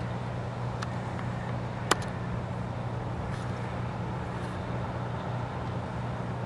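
Steady outdoor background noise with a low, even hum, broken by a single sharp click about two seconds in.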